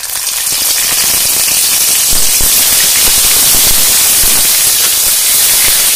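Wet onion paste sizzling hard in hot mustard oil in a steel wok, a loud steady hiss with small crackles as it is stirred with a spatula.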